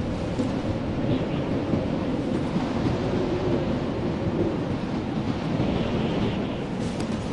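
Blizzard wind in a steady, dense low rumble, with no lulls.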